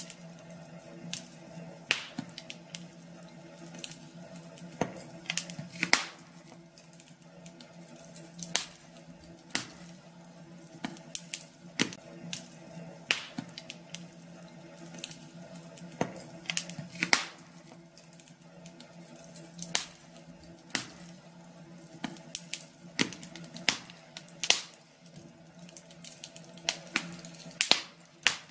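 Wood fire crackling in a fireplace: irregular sharp pops and snaps, several a second, over a faint steady hum.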